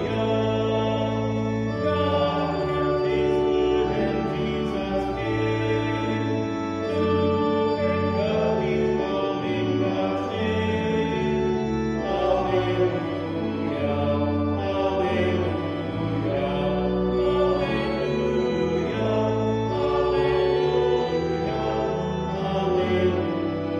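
A hymn sung by a choir over held organ chords with a low bass line, the chords changing every second or two.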